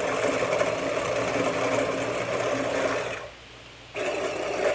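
Small electric food chopper running as it chops cooked chicken breast, stopping about three seconds in and starting again a second later.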